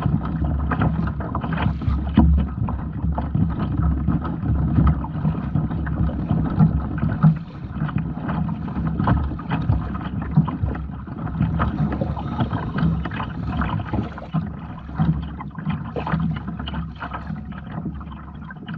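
Kayak on the sea: water splashing and lapping against the hull, with wind on the microphone and many scattered small knocks.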